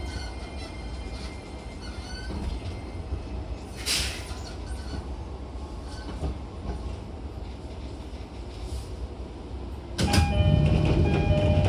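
Running sound inside an E231-1000 series electric commuter train at the end of its run: a steady low rumble, with a short hiss about four seconds in. About ten seconds in it turns suddenly much louder, with several steady tones over the rumble.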